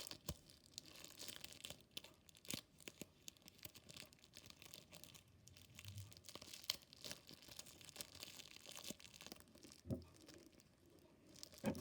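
Faint crinkling of a plastic sandwich bag being shaped, with clear tape being pulled and torn, heard as scattered small clicks and rustles.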